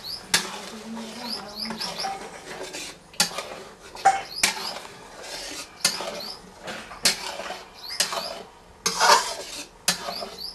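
Metal spatula scraping and clanking against a metal kadhai as thick masala is stirred, in irregular strokes about every half second to second, the loudest a little before the end.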